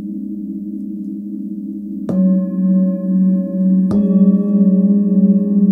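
Hand-forged singing bowls ringing with a slow pulsing wobble, struck twice with a felt mallet, about two seconds in and again about two seconds later. Each strike adds new tones over the ones still sounding.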